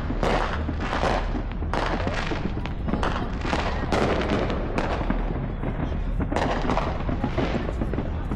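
Many consumer fireworks going off across a neighbourhood: an unbroken, irregular string of bangs and pops, several a second.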